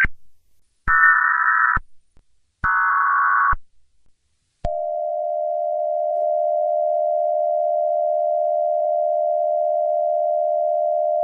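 Emergency Alert System tones: the end of one short burst of the digital header data, then two more bursts of about a second each, then a steady attention tone that starts about four and a half seconds in and holds.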